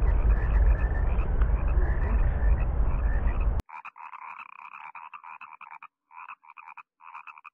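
A loud, steady rumbling noise on the microphone with frogs calling faintly underneath. About three and a half seconds in the noise cuts off abruptly, leaving a frog chorus croaking in rapid pulsed trains that stop and start.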